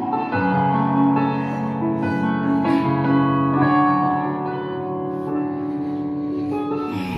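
Piano music played back through PA loudspeakers as a sound check of the newly connected system, with slow sustained chords changing every second or two.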